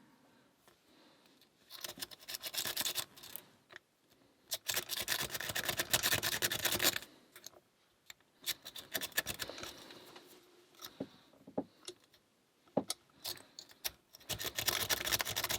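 A rake pick scraping rapidly in and out of a six-pin brass padlock's keyway, the pins chattering against it, in several bursts of one to three seconds with short pauses between. This is an unsuccessful raking attempt: the lock does not open.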